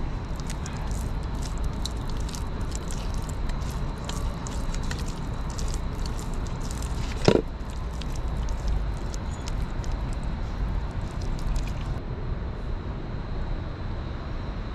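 Wet squelching and small clicks of hands working a thick spice paste into raw chicken pieces in a steel pot, over a steady low background rumble, with one short sharp knock about seven seconds in.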